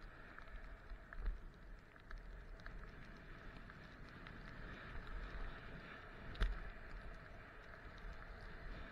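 Skis sliding over snow with a steady hiss, under low wind rumble on the microphone, with small clicks and a sharp knock about six and a half seconds in.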